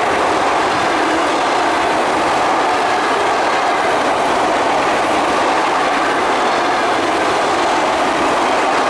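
An ЭД4М electric multiple unit passing, a loud, steady rush of wheels on the rails that keeps up without a break.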